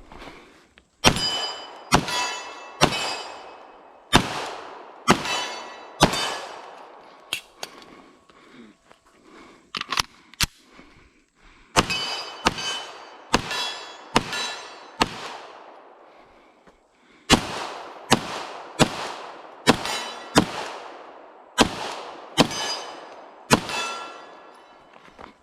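Canik TP9 SFX 9mm pistol fired in steady strings of shots, about one a second, each shot followed by the ringing clang of a struck steel target. There are some twenty shots in all, with a lull of a few seconds about a third of the way in and a short pause a little past halfway.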